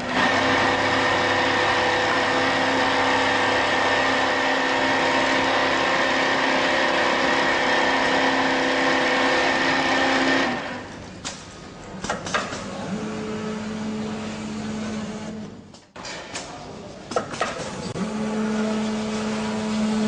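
Richpeace arm template sewing machine running, a steady whining hum with several held tones for about ten seconds that stops abruptly. Then quieter clicks and two shorter steady hums of a few seconds each as the machine moves between runs.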